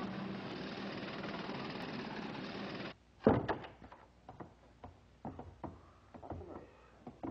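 Steady city traffic noise that cuts off suddenly about three seconds in. A loud door thud follows, then scattered knocks and footsteps.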